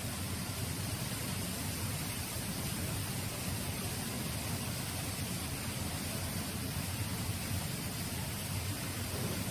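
Steady, even hiss over a low rumble, unchanging throughout, with no distinct events: constant background noise.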